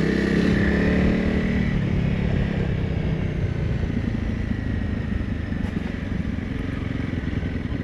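Honda CRF300 Rally's single-cylinder engine running on the move, strongest in the first two seconds. It then eases to a quieter, lower note as the bike slows on the dirt track.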